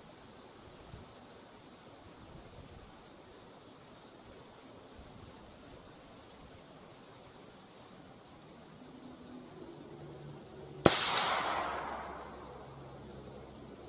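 A single shot from a home-built AR-15 rifle near the end, sharp and loud, followed by an echo that dies away over about a second and a half.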